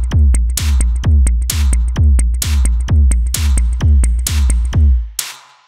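Native Instruments Maschine playing a Detroit techno drum kit: a steady four-on-the-floor kick drum about twice a second, each kick falling in pitch, with short high ticks between the kicks. About five seconds in the kick stops and a noisy hiss fades away.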